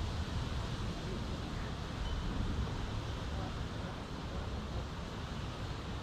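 Steady outdoor background noise: a low rumble with a faint hiss above it, the kind of distant traffic and wind ambience picked up by a small camera microphone.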